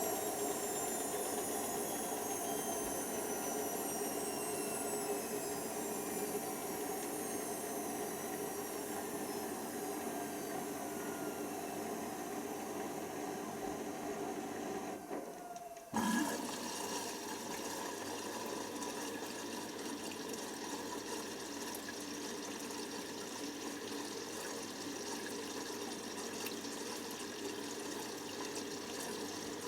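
Hoover Nextra washer dryer with a falling whine through its first half as the drum motor winds down. About halfway through the sound drops away briefly, then water rushes steadily into the machine through the inlet valve.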